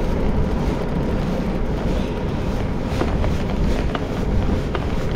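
Wind buffeting the microphone while riding a touring bicycle: a steady low rumbling rush with scattered light ticks.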